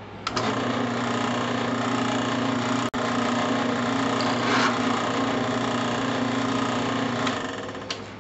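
Drill press motor switched on with a click, running with a steady hum, then switched off and spinning down near the end.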